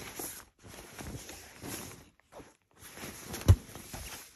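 Rustling and handling as a folded baby play mat in a blue fabric pouch is pulled about, with one sharp thump about three and a half seconds in.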